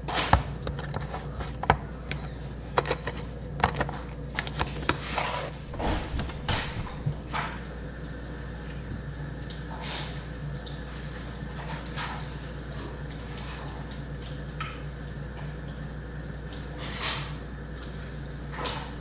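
Sticky slime being squished and pulled by hand, giving wet clicks and pops that come thick and fast for the first several seconds and then only now and then.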